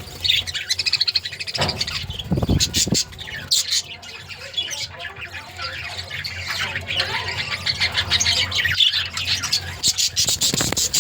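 A colony of budgerigars chattering and chirping non-stop, many birds at once, with a couple of low thumps about two seconds in.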